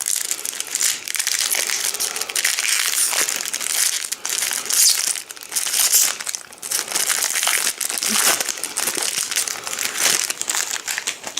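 Trading-card booster pack wrapper crinkling and crackling continuously as it is handled and opened.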